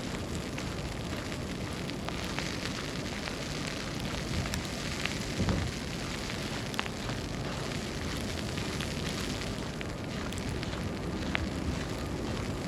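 Snowstorm street ambience: a steady hiss with a few scattered faint ticks and crackles, and a soft low thump about halfway through.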